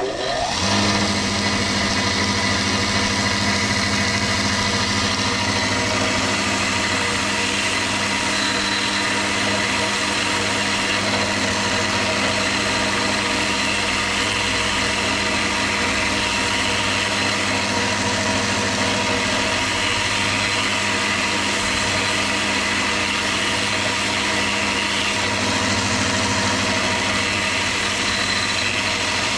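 Electric sander spinning up with a short rising whine, then running steadily while sanding the glued-up edges of a leather knife sheath, a hiss of abrasive on leather over the motor hum.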